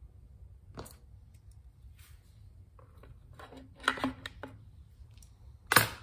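Small hand tools and parts being handled on a workbench: scattered light clicks and taps, with a few together in the middle and one sharp clack near the end.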